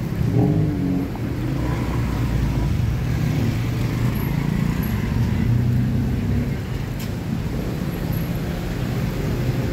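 City street traffic: motor vehicles running past on the road with a steady low engine rumble.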